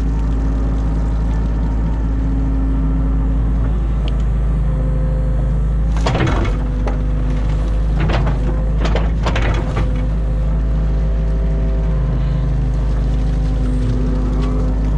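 New Holland Kobelco E50.2 mini excavator's diesel engine running steadily under hydraulic load. Sharp knocks and scrapes come about six seconds in and again several times between eight and ten seconds in.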